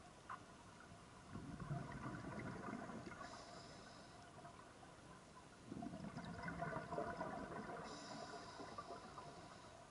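Scuba diver breathing through a regulator underwater: two surges of exhaled bubbles gurgling about four seconds apart, each ending in a short high hiss from the regulator.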